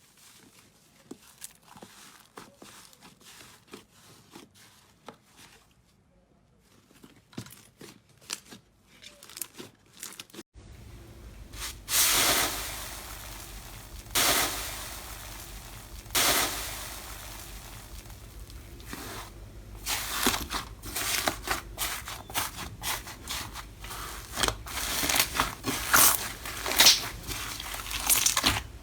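Slime being handled, squeezed and pulled, giving off crackling, popping and tearing sounds. It starts soft and sparse, then about ten seconds in the sound switches abruptly to louder, sharper crackling over a steady low hum, with the bursts coming thick and fast near the end.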